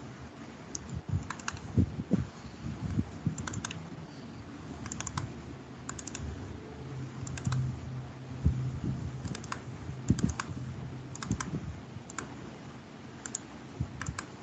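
Computer keyboard and mouse clicking at irregular intervals, many of the clicks coming in quick pairs. A faint low hum sits under the clicks in the middle.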